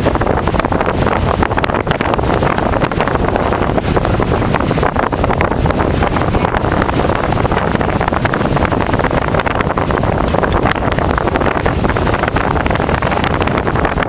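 Tropical-storm wind blowing hard across the microphone: a loud, steady rush of noise.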